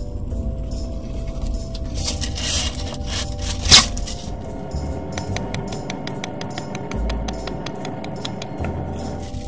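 Parchment cooking sheet drawn from its box with a rustle and torn off on the box's cutting edge with one sharp snap. Then a small handheld paper punch taps through the sheet in a rapid, even run of clicks for several seconds, over quiet background music.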